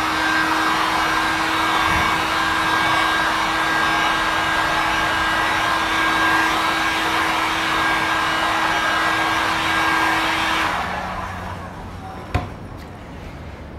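Electric heat gun blowing steadily with a constant hum, force-drying fresh clear-coat touch-up paint. It is switched off about eleven seconds in, and a single sharp knock follows a little later.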